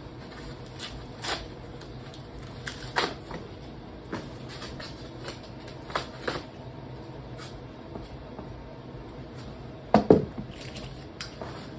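Scattered short clicks and crinkles of protective packaging being pulled off a folding electric bike, with a louder knock about ten seconds in.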